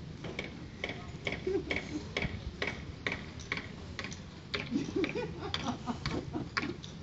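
Paintball markers firing: an irregular stream of sharp pops, several a second.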